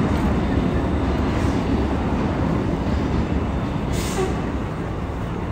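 City street traffic noise: a steady, dense low rumble of passing vehicles, with a short hiss about four seconds in.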